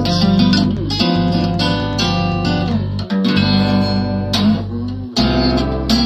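Acoustic guitar strummed in an instrumental break of a song, over a steady deep bass part, the chords changing about every second or two.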